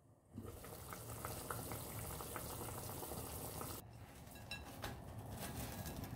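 Broth with whole onions simmering in a lidded saucepan: a steady bubbling with many small pops. About four seconds in it gives way to a quieter stretch as cling film is peeled off a plate.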